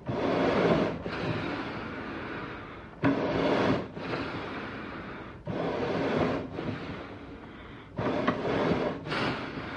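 Eerie animal breathing sound effect: slow breaths in and out, each a noisy rush with a low rumble underneath. A short, louder breath of about a second alternates with a longer, softer one of one to two seconds, about four cycles in all.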